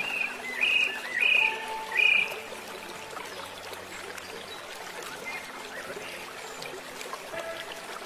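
Steady trickling of running water, with four short, loud chirps in the first two seconds or so.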